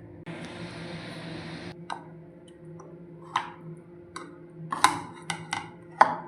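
Kitchen work sounds: a rushing hiss lasting about a second and a half, then a string of sharp clicks and knocks, the loudest near the end.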